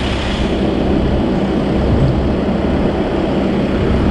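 Car AC recharge machine running: a steady mechanical hum with a noisy hiss.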